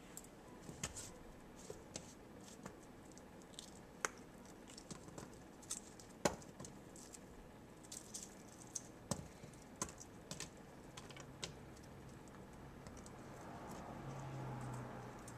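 Faint, irregular light clicks and taps as hands lay rings of raw onion and green bell pepper into the nonstick pot of a Ninja cooker. A low steady hum comes in near the end.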